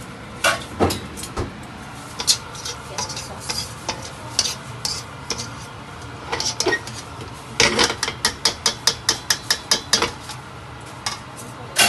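Wire mesh skimmer scraping and clinking against a stainless steel pan as food is scooped out of braising sauce. A quick run of light clinks, about five a second, comes a little past halfway.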